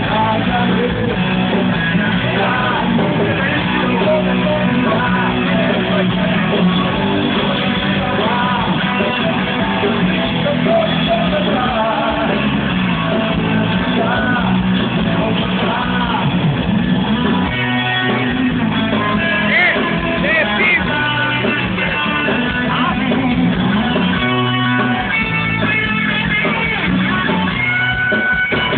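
Live rock band playing loud music with guitar and a singing voice, recorded on a phone that cuts off the high end.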